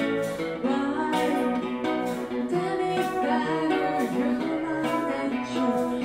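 Live acoustic guitar music with a singing voice.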